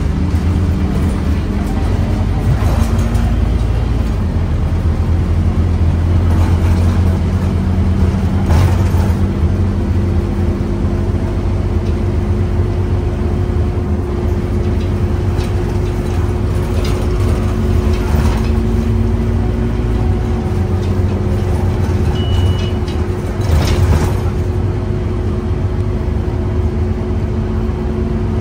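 Scania OmniCity single-deck bus heard from inside the passenger saloon while driving: engine running with a low rumble and a steady drone, with a few knocks and rattles from the body. A brief high beep sounds about two-thirds of the way through.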